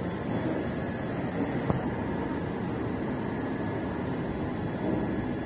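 Steady drone of running machinery, with one sharp click a little under two seconds in.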